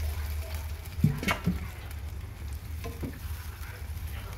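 Chicken pieces sizzling in shallow liquid in a nonstick wok while a utensil stirs them. It scrapes and knocks against the pan in a short cluster about a second in and once more near three seconds. A steady low hum runs underneath.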